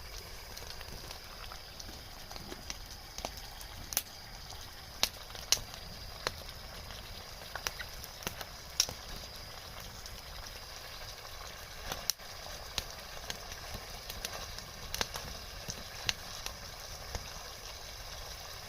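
Large wood campfire crackling, with irregular sharp pops and snaps over a steady low rush of burning.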